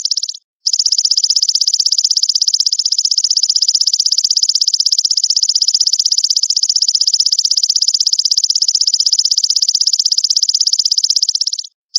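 Belalang emas (golden grasshopper) calling: a loud, high-pitched, continuous rapid buzzing trill. It cuts out abruptly for a moment about half a second in and again just before the end.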